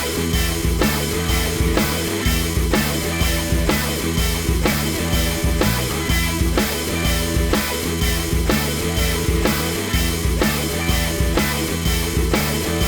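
Rock background music with electric guitar and a steady drum-kit beat.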